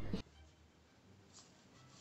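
Near silence: quiet room tone, with one faint click about one and a half seconds in.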